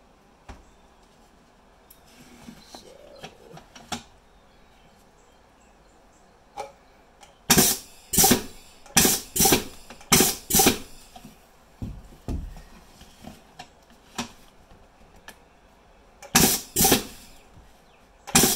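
Pneumatic underpinner driving V-nails into the corners of a wooden picture frame, worked by a foot pedal. A few faint clicks come first, then loud, sharp clacks in quick pairs: three pairs about seven to eleven seconds in, and two more near the end.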